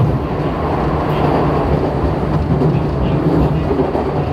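Running sound inside a JR 415 series 1500-subseries electric train's motor car, MoHa 415-1501, at speed: the MT54 traction motors humming under the steady rumble of wheels on rail.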